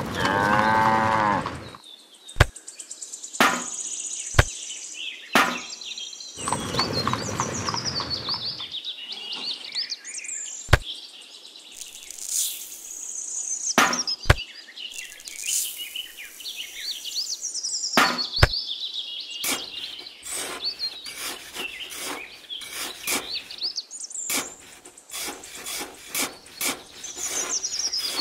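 A cow moos once at the start with a wavering pitch. Birdsong chirps go on throughout, over a series of sharp clicks and taps from small metal cups and a tiny spoon being handled in sand and cement powder.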